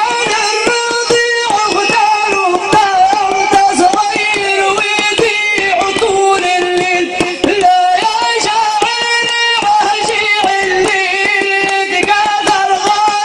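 Live Bedouin folk music: a melody of long, wavering held notes over quick hand-drum beats, loud and continuous.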